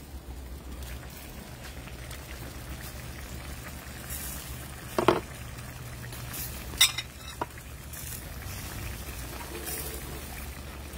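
Curry of squash and eddoes simmering in an uncovered stainless skillet over a wood fire, with steady bubbling. A couple of sharp knocks or pops come about five and seven seconds in.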